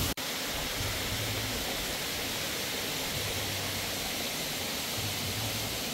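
Steady, even rushing hiss of outdoor ambience with no distinct events, cutting in after a momentary dropout just after the start.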